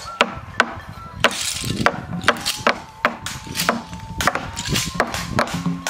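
Wood struck on wood: a log beaten with a stick, sharp knocks about three a second in an uneven rhythm, with a faint thin held tone drifting slowly in pitch beneath them.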